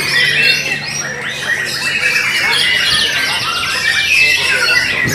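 Caged white-rumped shamas (murai batu) singing together in a contest, many birds' loud whistles, trills and chatter overlapping in one dense, unbroken stream.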